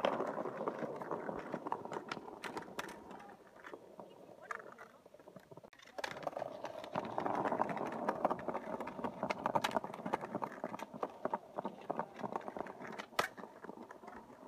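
Skateboard wheels rolling over stone paving tiles, a rough rumble with many scattered clicks and knocks. It dies away for a couple of seconds in the middle, then picks up again, with a sharper knock near the end.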